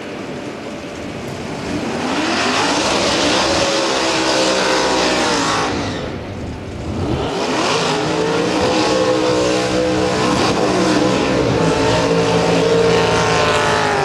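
Two big-tire drag cars doing burnouts one after the other: high-revving V8 engines with tyres spinning and hissing on the pavement. The first runs about two to six seconds in, the second starts a second later and lasts longer, the engine pitch climbing and dropping as the throttle is worked.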